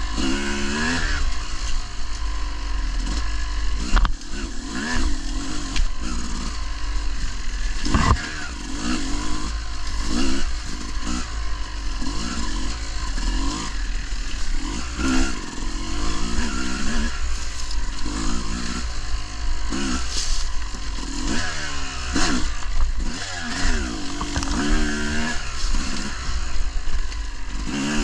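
Dirt bike engine revving up and down over and over as it is ridden, its pitch rising and falling every second or two over a steady low rumble. There are a couple of sharp knocks about four and eight seconds in.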